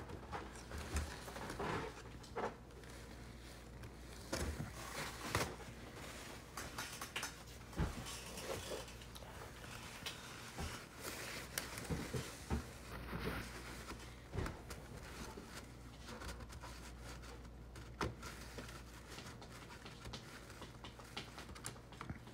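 Paper towel rubbing and dabbing inside an opened inkjet printer as flooded ink is wiped out, with scattered small clicks and taps on its plastic parts. A low steady hum runs underneath.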